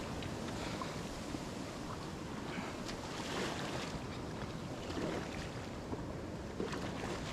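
Sea water sloshing and splashing around a kayak coming in through surf, with waves and wind buffeting the microphone; a few short splashes stand out over the steady wash.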